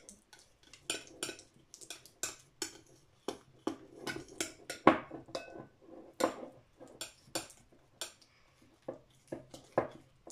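Metal teaspoon clinking and scraping against a white ceramic bowl in irregular strokes while stirring clear glue and slime activator together, with one louder knock about five seconds in.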